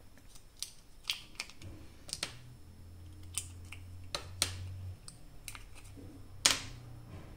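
AAA lithium batteries being pulled out of a plastic battery holder: a series of irregular light clicks and taps as the cells come free of their slots and contacts, the loudest about six and a half seconds in.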